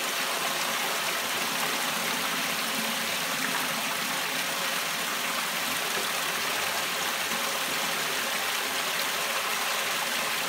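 Water jetting from a row of holes in the PVC inlet pipe of a homemade fleece filter and splashing steadily onto the fleece, as the filter runs on its first pump test.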